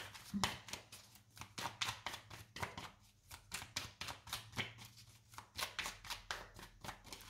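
Tarot deck shuffled between the hands: a quick, uneven run of soft card clicks, several a second, with a short lull about three seconds in.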